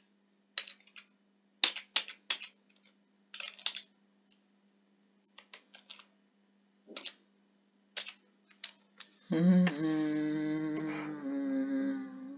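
Computer keyboard keystrokes, scattered single taps and short runs of typing. About nine seconds in, a person hums one held note for about three seconds, which drops a little in pitch near the end.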